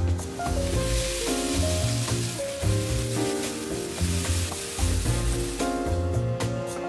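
Spaghetti with prawns, garlic and cherry tomatoes sizzling in a hot frying pan as it is stirred and tossed, over background music. The sizzle dies away about six seconds in.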